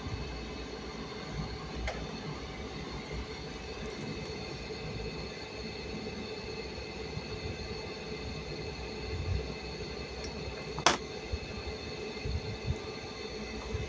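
Steady mechanical hum and rumble, with a sharp click about two seconds in and a louder click near eleven seconds.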